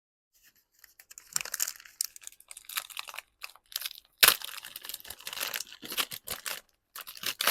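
Gift packaging being torn open and crinkled by hand: irregular crackling and ripping with many small sharp snaps and one loud sharp tear about four seconds in.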